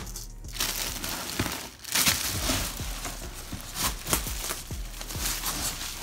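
Plastic packaging wrap crinkling and rustling, with cardboard rubbing, as a plastic-wrapped chair back is pulled out of its shipping box; a louder crackle comes about two seconds in.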